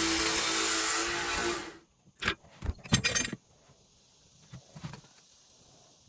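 Power grinder grinding a knife bevel with a steady hum, stopping abruptly just under two seconds in, followed by a few clinks and knocks of metal being handled.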